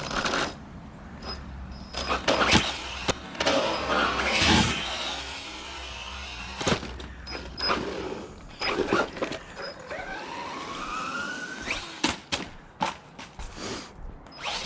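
Small electric RC car driving. Its motor whines, rising in pitch about ten seconds in as it speeds up, among repeated sharp knocks as the car bounces and hits the ground.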